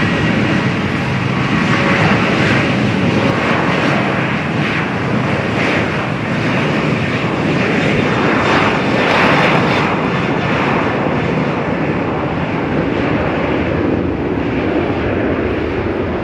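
Airliner engines, a loud steady rush of noise that holds through the whole stretch.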